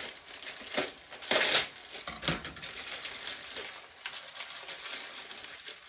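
Plastic instant-ramen wrapper crinkling as it is opened and handled, with the dry noodle block crunching; a louder burst of crackling about a second and a half in.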